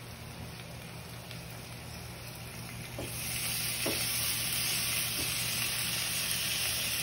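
Marinated beef steak sizzling on a hot grill pan, the sizzle growing much louder about three seconds in as more pieces are pressed onto the pan.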